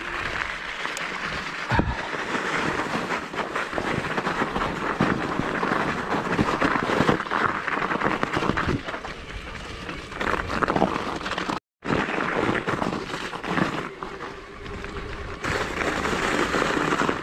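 Mountain bike rolling over crusted snow and gravel: continuous crunching and crackling of the knobby tyres, with the bike rattling over the bumps.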